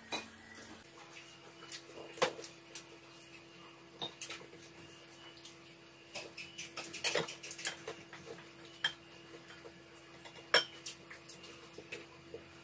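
Metal fork and spoon clinking and scraping on ceramic plates and a bowl during a meal, in scattered light clicks, a few of them louder.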